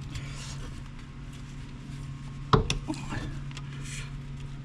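Parts being handled during a test fit: a sharp knock about halfway through, a couple of small ticks after it, and light rustling, over a steady low hum.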